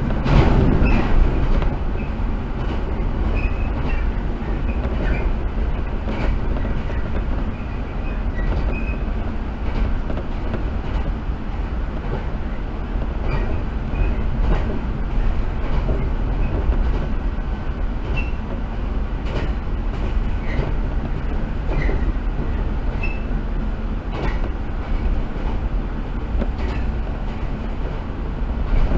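Inside a JR 115 series electric train running along the line: a steady rumble of wheels on the rails, with scattered clicks from the track and a louder moment right at the start.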